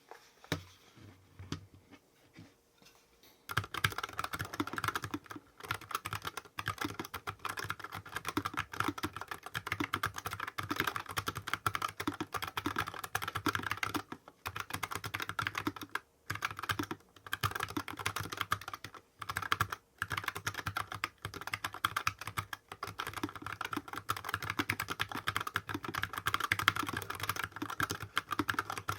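Typing on a mechanical keyboard: a few light keystrokes, then from about three and a half seconds in a fast, continuous run of key clacks with a few short pauses.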